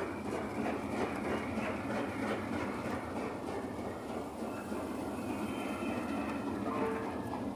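Rake of railway passenger coaches, Pullman cars and West Coast Railways coaches, rolling past at speed: a steady rumble of steel wheels on the rails with a clickety-clack over the joints.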